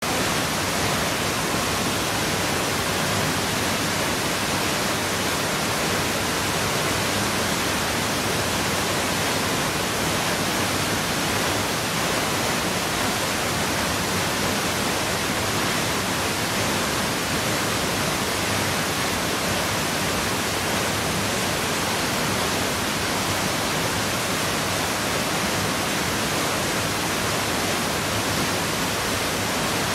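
Big waterfall: a steady, dense rush of falling water, unchanging throughout.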